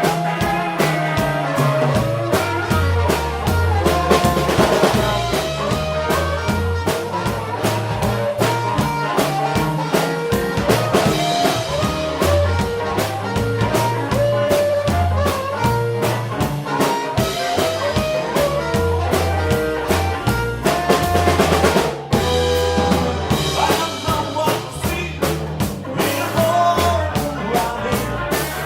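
Blues band playing, with a steady drum-kit beat, a bass line and a harmonica melody.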